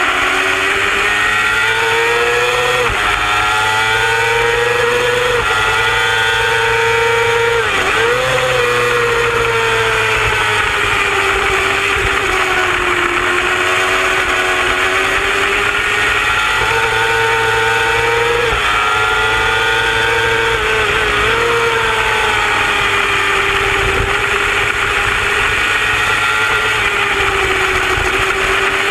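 Sport-bike engine at racing revs heard from on board, over the rush of wind. The pitch climbs and drops sharply at each upshift, about 3 and 5 seconds in and again around 16 and 18 seconds in, with a short dip and blip near 8 seconds, then holds fairly steady.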